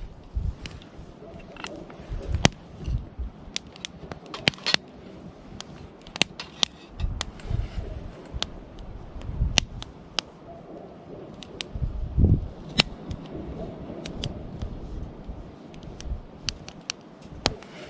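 Wood campfire crackling, with irregular sharp pops and snaps every second or so over a low, uneven rumble.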